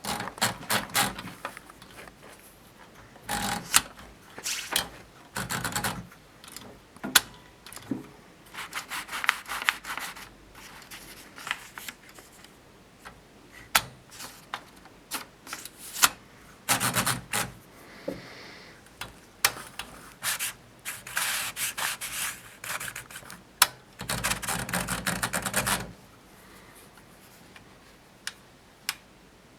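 Small orange Tessy portable typewriter being worked by hand: irregular bursts of mechanical clicks and rasping, with a longer continuous rasp near the end, separated by short pauses.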